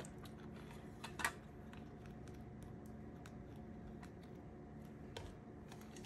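Faint, scattered light clicks and taps from small stationery items being handled on a desk, with one louder click about a second in.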